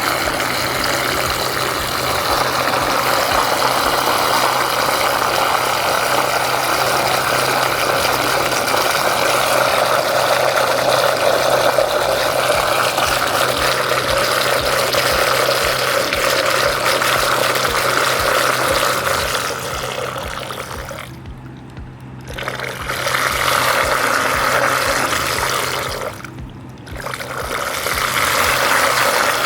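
IKA benchtop overhead stirrer running steadily with a constant hum and a rushing noise. Its sound drops away briefly twice near the end and comes back up.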